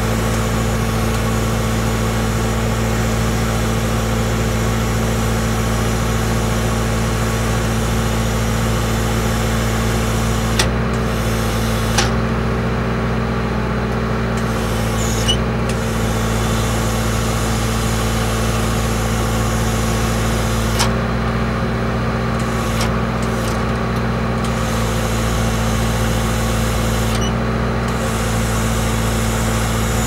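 Skid steer loader's engine running at a steady speed while it works the hydraulics of a boom mower attachment. A few short clicks sound now and then.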